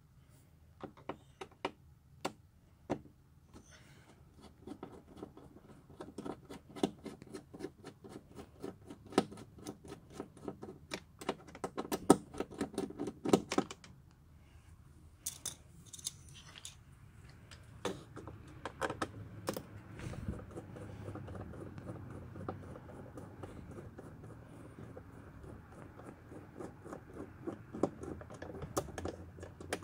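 A hand screwdriver and a small ratcheting bit driver clicking and scraping as screws are backed out of plastic car door trim, with runs of rapid ratchet ticks.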